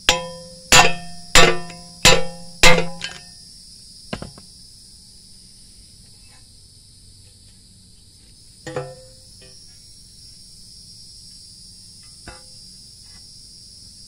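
Hammer striking a 2014 Kia Forte's steering knuckle to drive out its failed, dried-out wheel bearing: five sharp, ringing metal blows in quick succession, then three fainter knocks a few seconds apart.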